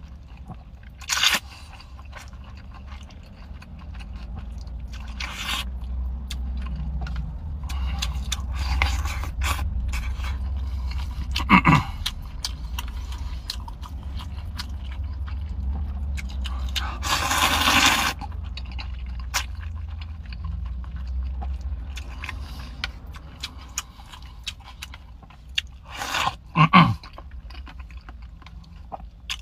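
A person slurping noodles and chewing, close to the microphone, with several short sharp slurps and one longer slurp of about a second past the middle. A steady low hum runs underneath.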